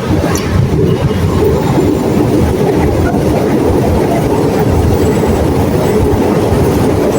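Loud, steady low rumble of a heavy vehicle passing close by.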